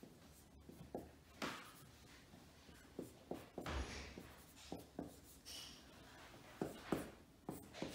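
Dry-erase marker writing on a whiteboard: faint, irregular strokes of the tip across the board.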